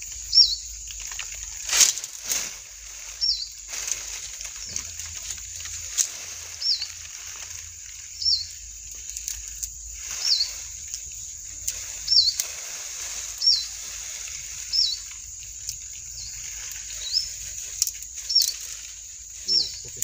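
A bird repeating one short, high, hooked call about every second and a half, over a steady high buzz. Two sharp clicks about two seconds in.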